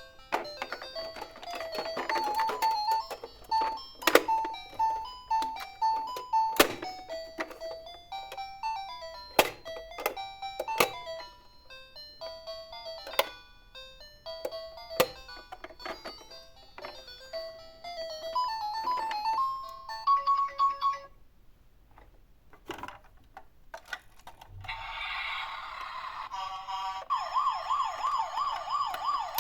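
A toy's electronic jingle: a simple beeping melody of stepping notes, broken by sharp clicks and knocks. It stops about two-thirds of the way through, and after a short near-quiet gap a toy siren starts near the end, a fast rising-and-falling wail.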